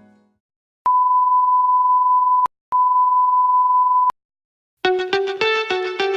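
Two long, steady electronic beeps of one high pitch, each over a second long with a short break between them: a TV-style bleep sound effect edited in over a 'spoiler alert' graphic. Music with plucked notes starts near the end.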